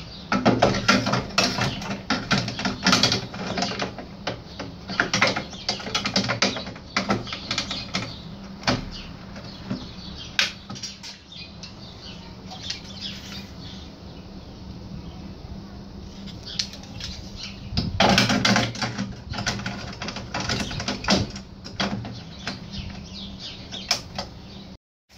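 Irregular metallic clicks and rattles of hands working the drum and counter mechanism inside a 1984 Merkur Saturn slot machine, in flurries with short pauses, over a steady low hum.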